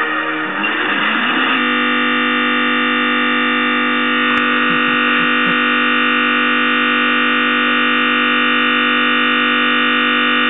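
A computer's sound output stuck in a loop as Windows crashes to a blue screen of death: a loud, harsh, unchanging buzz of many pitches at once, jumbled for the first second and a half before locking onto one frozen chord. There is a brief click about four seconds in.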